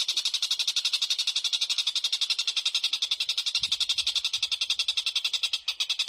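Small songbird's rapid, continuous high-pitched chattering trill, about a dozen notes a second without a break.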